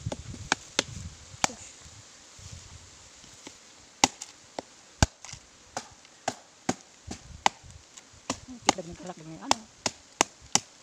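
Machete blade chopping into a hollow wooden log to open up a wild bee nest: a few sharp chops at first, a pause, then a steady run of chops about two to three a second from about four seconds in.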